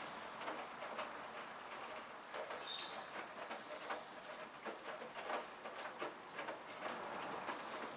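Hoover front-loading washing machine in the early part of its cotton-with-prewash cycle: water trickling and pattering in the drum, with irregular light clicks.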